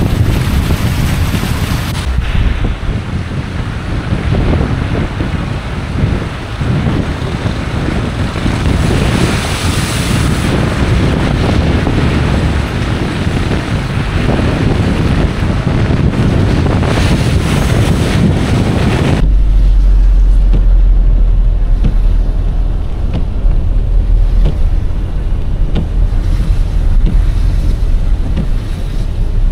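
Wind buffeting an outside-mounted microphone, over a car's tyres swishing through standing floodwater. About two-thirds of the way through the sound switches abruptly to the muffled low rumble of the car heard from inside the cabin.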